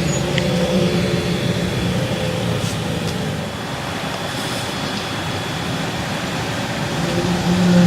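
A low, steady droning hum over a rumbling noise, fading somewhat through the middle and swelling again near the end.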